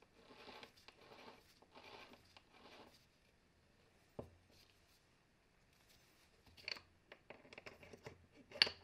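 Gloved hands handling the greasy gears and shafts of an opened hammer drill gearbox. Soft rubbing swishes come first, then a single click about four seconds in. Near the end there is a run of light metal clicks and taps as the spindle shaft is lifted out of the housing.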